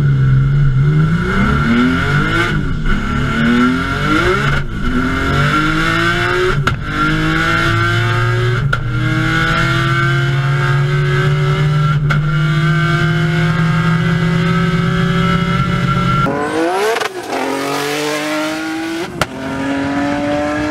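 Turbocharged R32 VR6 engine in an Audi S2 coupe under full acceleration, the note climbing and dropping back at each gear change about every two seconds, then holding a long pull in a high gear. About 16 seconds in the sound changes abruptly with a sweep, and the engine climbs again.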